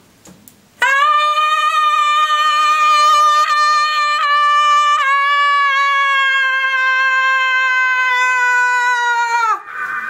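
A woman's voice holding one long, loud high note for about nine seconds, then sliding down in pitch as it breaks off.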